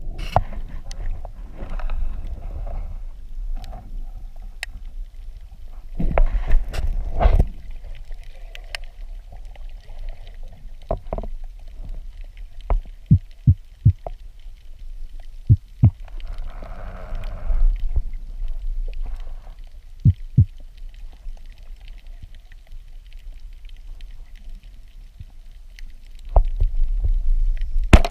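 Muffled underwater sound picked up by a GoPro in its waterproof housing during a spearfishing dive: a steady low rumble of moving water, with scattered sharp clicks and knocks and a few louder swells of water noise.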